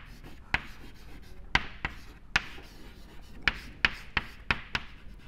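Chalk writing on a blackboard: about ten sharp taps of the chalk striking the board at an uneven pace as letters are written, with faint scraping between them.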